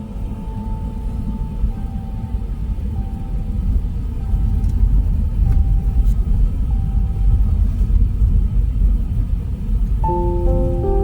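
Car driving over an icy, snow-covered road: a steady low rumble of tyres and engine, louder from about four seconds in.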